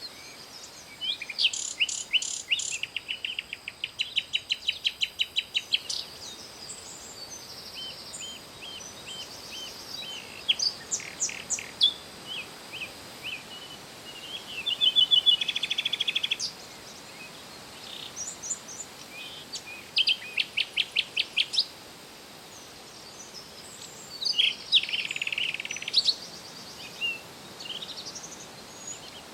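Songbirds singing: bouts of rapid, repeated high chirps and trills a few seconds long, over a faint steady background hiss.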